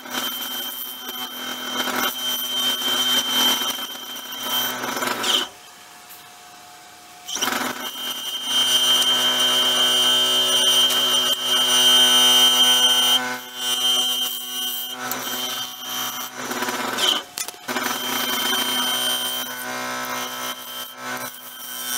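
Wood lathe motor running with a steady whine while a bowl gouge cuts a cedar-and-resin bowl blank. About five seconds in the lathe stops for about two seconds, then runs and cuts again.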